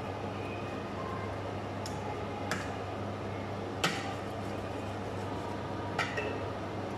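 Spoon stirring a creamy stew in a stainless steel pot, clicking sharply against the pot a few times, with the loudest click about four seconds in, over a steady low hum.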